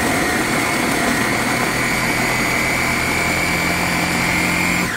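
Ninja blender running at medium speed, chopping cooked chicken breast pieces: a steady motor noise with a high whine. The whine climbs slightly in the first second, and the motor shuts off just before the end, its pitch falling as it spins down.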